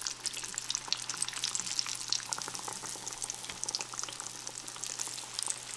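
Pork-rind-breaded pickle chips deep-frying in a small pan of hot oil: a steady crackling sizzle made of many tiny pops.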